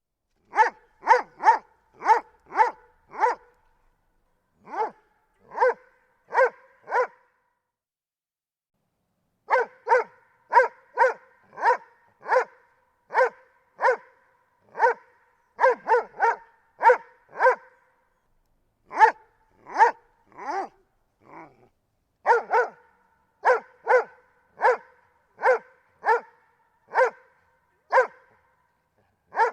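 Doberman pinscher barking over and over: short, separate barks about two a second, in runs of four to eight broken by pauses of a second or two.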